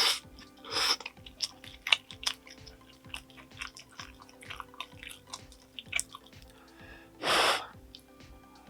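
Close-miked eating sounds: a run of small wet mouth clicks and smacks while chewing, with two louder rushes of noise, about a second in and near the end.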